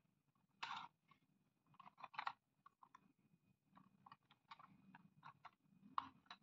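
Faint clicks, taps and short scrapes of a hard plastic toy train engine being handled and turned over in the hand. The loudest scrape comes just under a second in.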